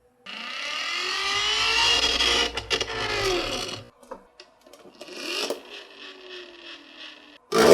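Marbles rolling along a toy marble run track, a loud rolling run with rising and falling tones that drops to a softer roll about four seconds in, then a sharp clack near the end.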